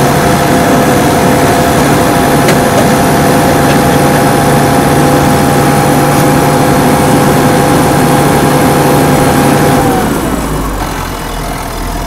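Massey Ferguson 6465 tractor's diesel engine running at steady revs, heard at the open cab door. About two seconds from the end the revs drop and the engine settles lower and quieter.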